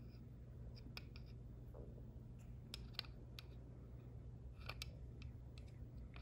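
Faint, irregular clicks and ticks of a flat wrench against a bicycle freehub driver as it pushes an O-ring down into the driver's groove.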